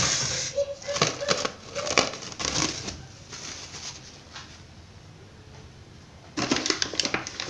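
Stainless steel mixing bowl set down and shifted on a kitchen counter, with scraping and sharp knocks for about three seconds. Another short spell of knocks and rubbing comes about a second before the end.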